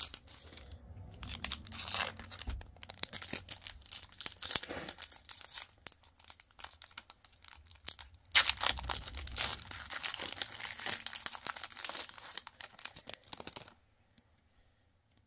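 Plastic foil wrapper of a 2022 Topps Pro Debut baseball card pack being torn open and crinkled, in irregular crackling stretches. It stops shortly before the end.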